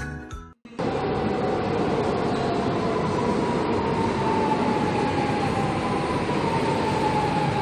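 Lisbon Metro train pulling into an underground station: a steady rumble of wheels on rails, with a whine that slowly falls in pitch as the train slows.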